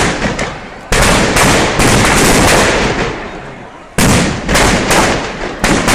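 Firecrackers packed inside the burning Böögg, the straw snowman effigy of Zürich's Sechseläuten, going off in a rapid string of loud bangs, each fading off quickly, with a lull about three seconds in before another cluster.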